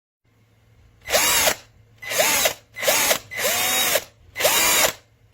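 VIWKO 20V cordless drill's motor run in five short trigger pulls about a second apart, each one whirring up in pitch and winding back down.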